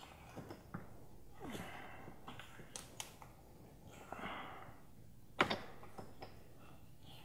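Faint clicking and rubbing of plastic fuel-line quick-connect fittings being handled and pushed onto a VW 2.0T fuel filter, with one sharper click about five and a half seconds in.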